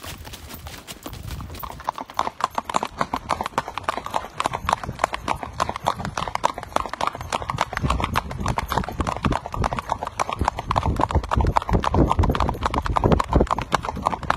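A gaited Tennessee Walker's hooves clip-clopping in a quick, even run of strikes while being ridden, getting louder about two seconds in.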